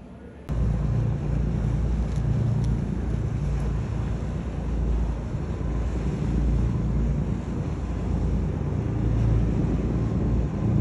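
Steady low rumble of a boat under way, with wind buffeting the microphone and water rushing past, cutting in suddenly about half a second in.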